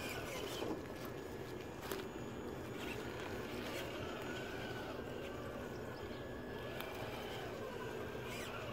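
Scale RC crawler truck driving over dry leaf litter and twigs: a faint electric-motor whine that rises and falls with the throttle, over the crackle of leaves under the tyres, with a few sharp snaps.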